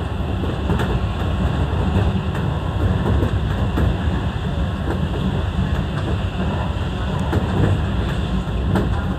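Seibu 101 series electric train running along the track, heard from inside the front car: a steady low rumble of motors and wheels with faint scattered clicks from the rails.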